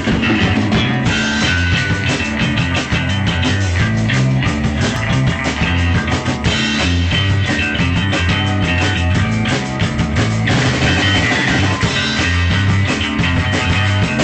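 Rock music with electric guitar and a stepping bass line, with a drum kit being played along in many quick hits.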